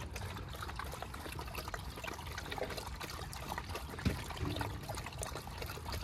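Water pouring in a steady trickle into a dog's water bowl.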